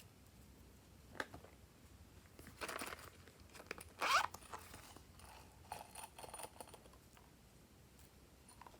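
Hands working glossy slime: a few short, sticky crackling and tearing rustles. The loudest comes about four seconds in, with a brief rising squeak.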